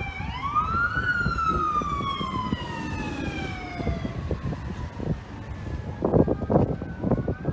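Ambulance siren on its wail: one long rise for about a second, then a slow fall over about three seconds, followed by a fainter falling tone and the start of another rise near the end, over a low rumble.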